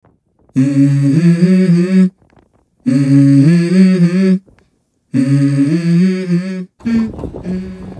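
A low hummed vocal phrase, the same short stepping melody sung three times with brief silences between. Near the end it gives way to a noisier sound with one held note.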